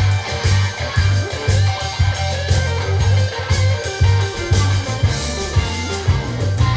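Rock music with guitar, bass and drums played back through Canton GLE 70 loudspeakers, with a strong pulsing bass line.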